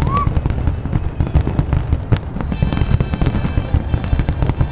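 Fireworks going off continuously: dense low booms with many sharp cracks. About two and a half seconds in, music joins in over the bangs.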